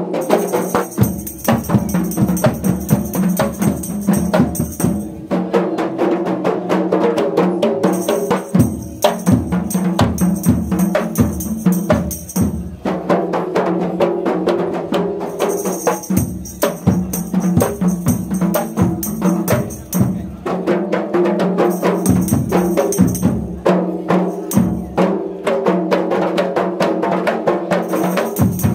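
Kompang, Malay hand-slapped frame drums, beaten by a group in a dense, rapid interlocking rhythm while walking in procession.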